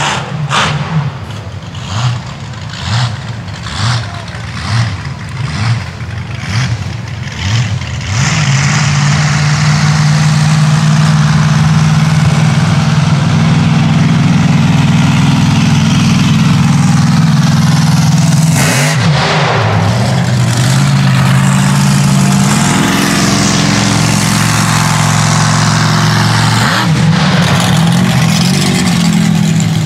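Supercharged big-block V8 of a 2100-horsepower mega truck. It pulses in an even rhythm about once a second for the first eight seconds, then settles into a loud, steady run that rises slightly in pitch about two-thirds of the way through.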